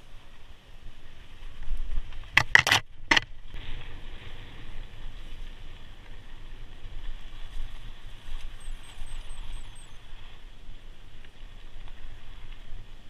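Mountain bike riding fast down a rocky dirt singletrack: steady rumble and hiss of tyres over dirt and wind on the mic, with the bike rattling. A burst of sharp knocks from about two and a half to three seconds in, as the bike jolts over rocks.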